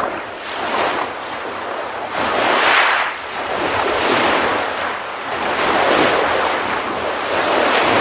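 Sea waves breaking and washing in, a dense hiss that swells and eases every second or two.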